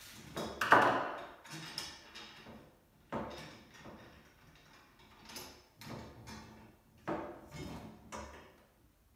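Metal clinks and knocks from long bolts and screwdrivers against a wheelbarrow's metal frame tubes as the bolts are fitted through the frame holes in place of the screwdrivers used to line them up. A string of separate sharp knocks, the loudest about a second in.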